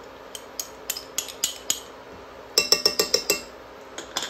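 Metal spoon scraping and clinking against a small glass ramekin and a steel saucepan as mustard is spooned in. Scattered light clicks come first. A quick run of about eight sharp, ringing clinks about two and a half seconds in is the loudest part, and a couple more clinks follow near the end.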